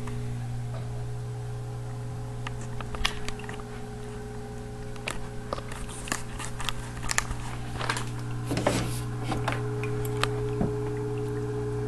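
Steady electrical hum of running aquarium equipment, with scattered clicks and knocks and a short rustle about three quarters of the way through.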